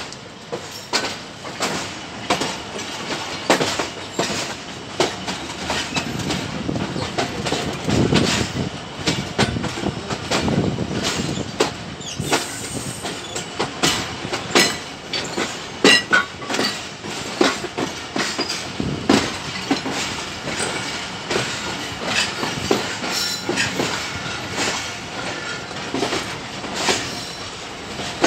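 Millat Express passenger coach wheels clattering over rail joints and points while the train rolls slowly out of the station, a run of sharp, irregular knocks over a steady rolling rumble.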